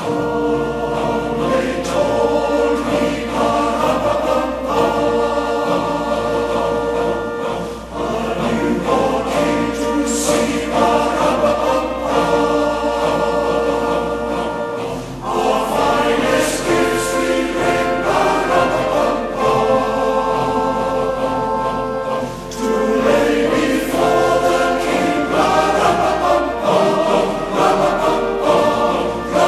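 Choir singing a piece of choral music over a low held bass, in long phrases with short breaks between them.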